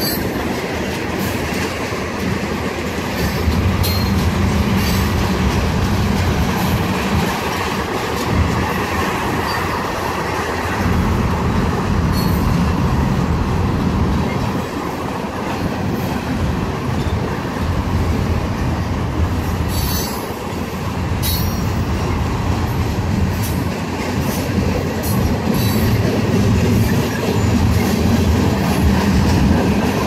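Freight train cars rolling past: a steady rumble and clatter of steel wheels on the rails, with a couple of sharp clicks about twenty seconds in.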